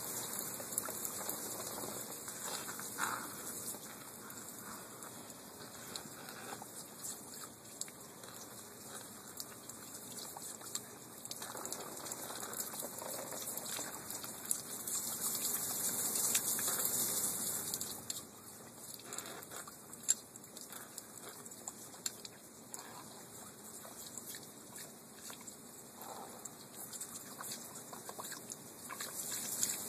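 Thin stream of water from a garden hose trickling and spattering on wooden deck boards as puppies lap and bite at it, with small splashy ticks throughout. It gets louder for a few seconds and then drops back about two-thirds of the way through.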